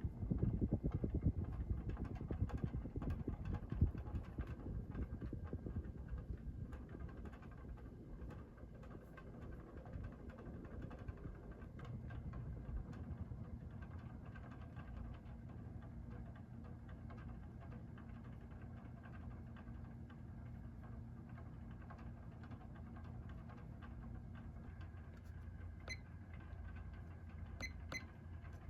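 Emerson Carrera Grande ceiling fan running on its large 212x25mm motor: moving air and a rough flutter that ease off over the first several seconds, then settle into a steady motor hum. A few light clicks near the end.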